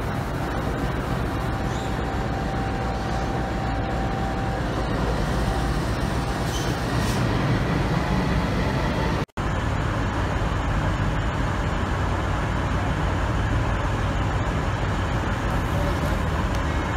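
Diesel-electric locomotive engine of a Pacific National NR class (GE V16 diesel) running steadily with a low rumble. About nine seconds in the sound cuts out for a moment, then the same steady engine running resumes as the locomotive draws along the platform.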